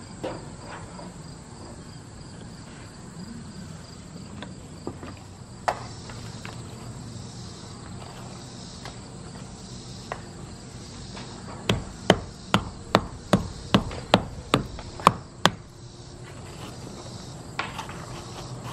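Hammer blows on old brick and mortar knocking bricks loose from a masonry column: a few scattered knocks, then a quick run of about ten sharp blows, two or three a second, past the middle. Insects drone steadily behind.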